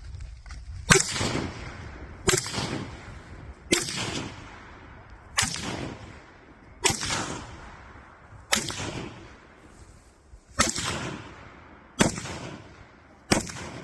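Hungarian AMD-65 rifle in 7.62x39 firing nine loud single shots at a steady pace, about one every one and a half seconds, each shot ringing off in an echo.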